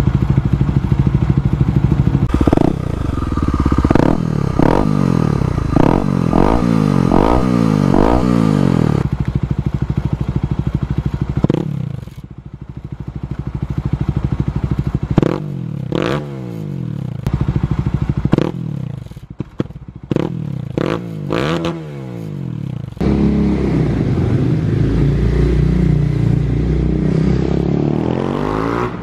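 Single-cylinder Kawasaki KLX250 dirt bike engine, shown both stock-bore and with a 351cc big bore, running through an FMF slip-on exhaust. It is revved in a series of quick throttle blips, each rising and falling, across several clips cut one after another. A steadier stretch of engine sound comes near the end.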